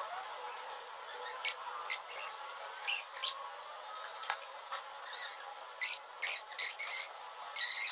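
A fish being scaled by hand: short scraping rasps against the scales, a few scattered strokes at first, then a quick run of strokes near the end.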